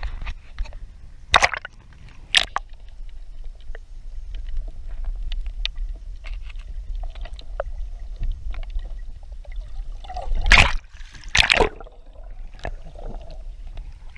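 Water sloshing and splashing beside a small boat, with two loud splashes about ten and eleven seconds in and smaller ones near the start, over a low rumble of wind on the microphone.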